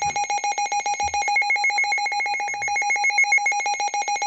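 Electronic emergency alert tone pulsing rapidly and evenly, trilling like a ringing telephone, made of a lower tone and higher shrill tones.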